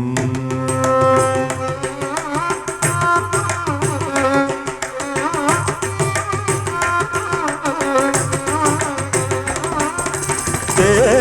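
Instrumental interlude of a Carnatic-style Malayalam film song: rapid tabla strokes under a melodic instrument playing ornamented, wavering phrases.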